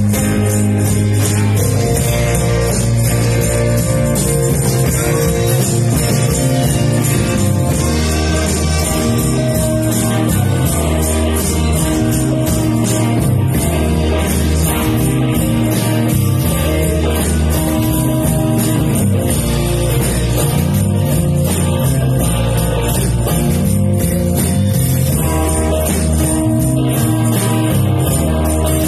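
A small band playing a steady, unbroken stretch of music: strummed acoustic guitar over a bass line, with a jingling tambourine or shaker keeping time.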